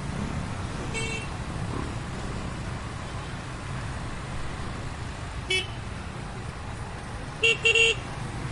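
Heavy street traffic rumbling steadily, with vehicle horns tooting: a short toot about a second in, another brief one about halfway through, and a quick burst of three loud toots near the end.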